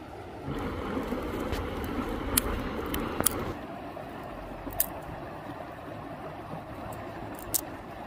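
Small twig campfire crackling, with a few sharp pops now and then, over the steady rush of a flowing river that swells for the first few seconds.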